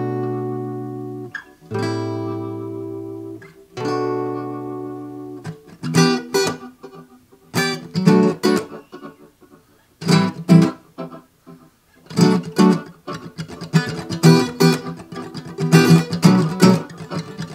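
Acoustic guitar played through a ToneWood Amp on its tremolo/delay setting, the unit vibrating the guitar's back. Three chords are struck and left to ring, then from about six seconds on chords are strummed quickly in short clusters with brief gaps.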